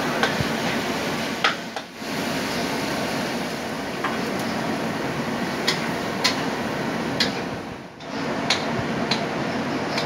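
Squid and seafood stir-frying in a wok with a metal spatula: a steady hiss with occasional sharp clinks of the spatula against the wok. The sound briefly drops away twice, about two seconds in and near the end.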